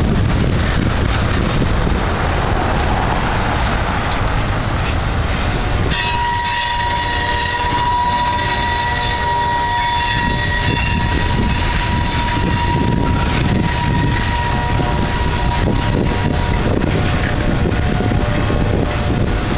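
Freight cars of a CSX steel train rolling past with a steady rumble of wheels on rail. From about six seconds in, a high, steady wheel squeal joins the rumble and lasts some ten seconds.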